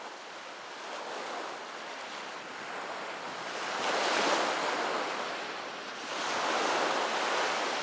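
Ocean waves rushing in a steady wash that swells louder about four seconds in and again near the end.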